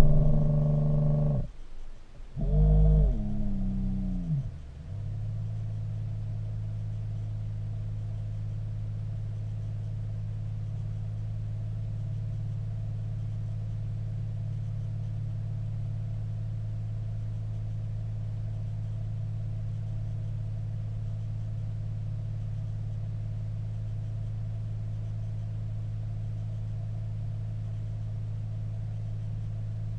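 Home-built ROV's thruster motors heard through the camera housing: a pitched motor whine cuts out, comes back briefly about two and a half seconds in and winds down in pitch over a couple of seconds, then settles into a steady low hum.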